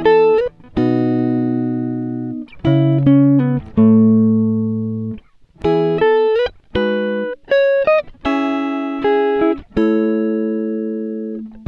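Background music: a guitar playing a slow run of plucked chords and single notes, each ringing out and fading before the next.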